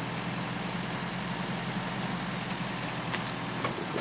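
Off-road vehicle's engine running steadily at low revs, with a few faint ticks near the end.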